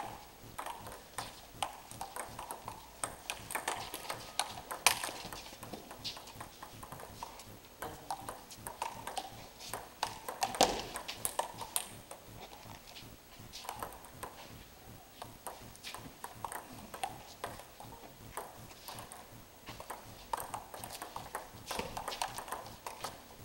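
Table tennis rallies: a ping-pong ball clicking off the paddles and bouncing on the table, in quick irregular strings with short pauses between points.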